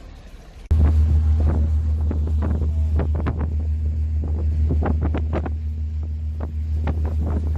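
Wind rumbling on the microphone aboard a moving boat, cutting in abruptly about a second in, with irregular sharper gusts on top.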